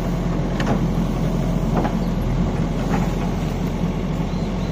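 JCB backhoe loader's diesel engine running steadily as it works its hydraulics, lifting and swinging a bucket of wheat over to the trolley, with a few faint clicks about a second apart.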